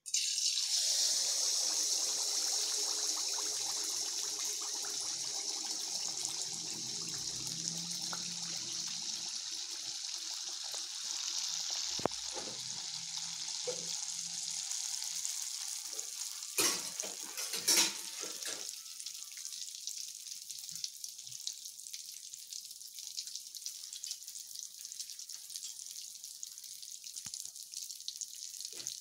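Sweet rice-jaggery-banana batter sizzling as it deep-fries in hot oil, the hiss starting suddenly as the ladleful goes in and slowly easing off. A few sharp knocks come about halfway through.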